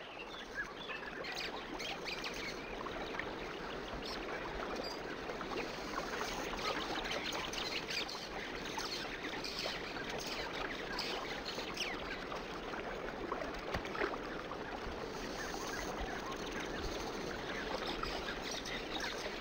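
Baby crocodiles chirping many times over in short, high calls, over a steady wash of water.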